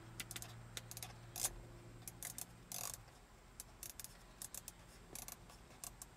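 Faint, irregular clicking of a ham transceiver's control knob being turned step by step to adjust the RF power setting, with a low hum that fades out about halfway through.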